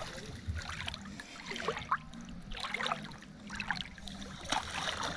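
Water sloshing and splashing as a person wades waist-deep through a clear spring run, with many small irregular splashes and trickling.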